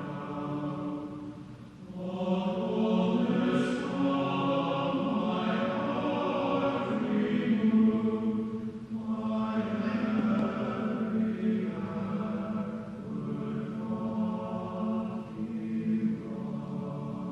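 A choir singing a hymn in long held phrases, with brief breaths between phrases about two and nine seconds in.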